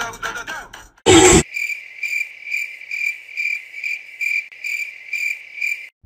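Cricket chirping: a steady run of high chirps, nearly three a second, starting abruptly right after a short, loud burst of noise about a second in.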